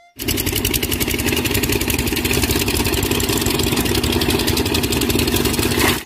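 Diesel engine of a small dump truck running, a rapid, even chatter with a steady low hum that cuts in abruptly just after the start.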